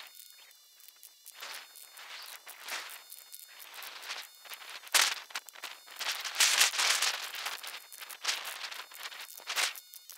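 Rough, irregular scraping and tearing of asphalt shingles being stripped off a roof, in repeated bursts, the loudest about five seconds in and again around six to seven seconds, over a thin, steady high whine.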